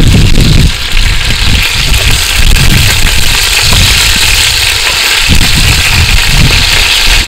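Chicken thighs sizzling in hot oil in a cast iron Dutch oven, a steady hiss, under a heavy low rumble of wind on the microphone that comes and goes in gusts.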